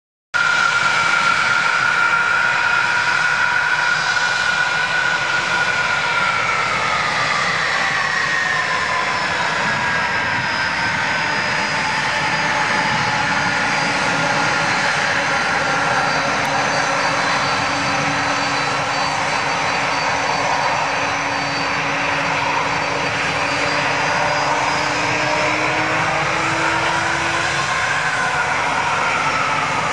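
Airbus A300-600R freighter's Pratt & Whitney PW4158 turbofans running at taxi power as the aircraft taxis past: a steady jet roar with high whines whose pitch slides slowly down over the first ten seconds and rises briefly again near the end.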